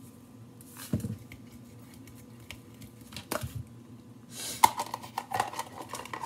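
Kitchen clatter of dishes and utensils: a sharp knock about a second in, another a little after three seconds, then a quick run of clinks and knocks with a ringing metallic tone over the last two seconds.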